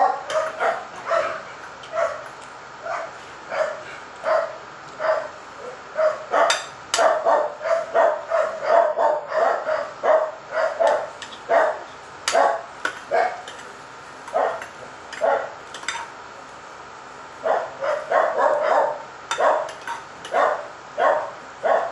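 A dog barking over and over, short barks about one or two a second, with a lull of a few seconds past the middle.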